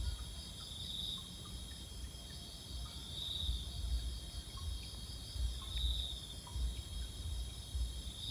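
Night-time chorus of crickets: a steady high-pitched trilling, with a louder buzzing call that swells up about every two and a half seconds. Under it runs a low, uneven rumble on the microphone.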